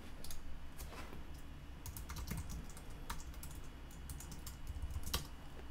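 Computer keyboard typing: soft, scattered key clicks, with one sharper click near the end.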